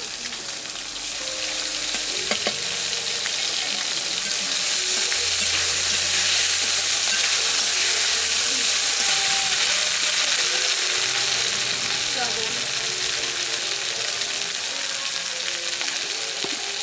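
Potato chunks and chopped onion sizzling in hot oil in a metal kadai, stirred with a steel spatula scraping the pan. The sizzle grows louder about four seconds in.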